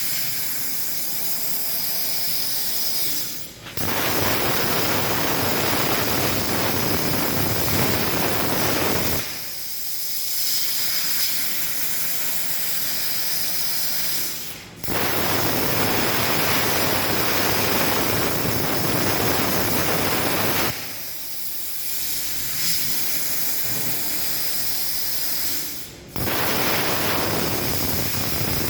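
CNC plasma cutter's torch hissing loudly while cutting, in three stretches of about five to six seconds that each start abruptly after a brief dip. Between cuts a softer steady hiss with a high tone carries on.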